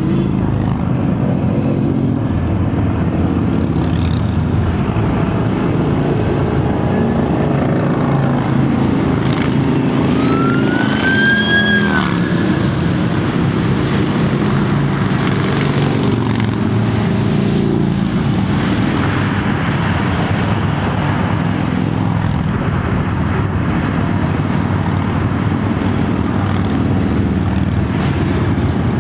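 Cruiser motorcycles riding past in a long procession: a steady, continuous mass of engine and exhaust noise. About ten seconds in, a high-pitched tone rises twice and cuts off.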